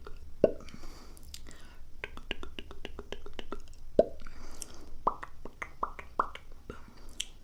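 Close-miked ASMR mouth sounds: a rapid run of wet tongue and lip clicks, with soft breaths in between. Two louder mouth pops come, one about half a second in and one at about four seconds, and a run of smaller pops follows near the end.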